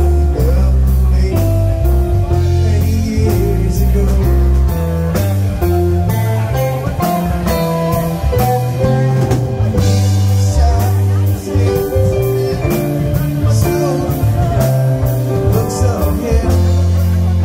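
Live rock band playing: electric guitar, bass and keyboard over a steady beat, with a woman singing.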